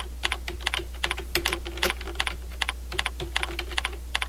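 Computer keyboard keys clicking as text is typed: a quick, uneven run of keystrokes over a steady low hum.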